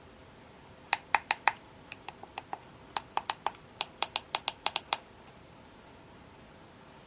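A rapid, irregular run of about twenty sharp clicks over about four seconds, loudest in the first few.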